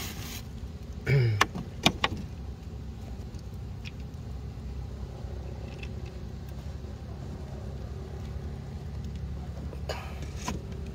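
Small boat engine running with a steady low hum. A few sharp knocks come about two seconds in and again near the end.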